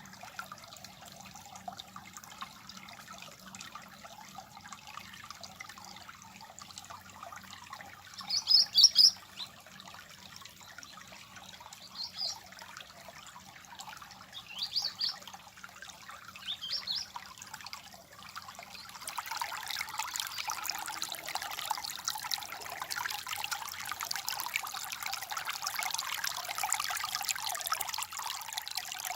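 Water trickling and babbling steadily, with a few short, high bird chirps between about 8 and 17 seconds in. About two-thirds of the way through, the water noise abruptly gets louder and fuller.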